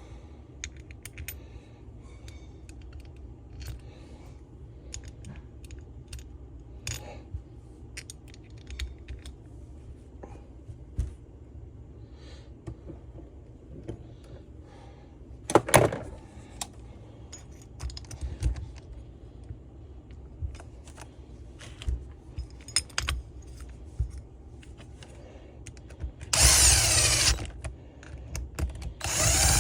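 Clicks and clatter of small metal parts and hand tools being handled on a workbench, with one louder knock about halfway through. Near the end a power drill/driver runs in two short spells.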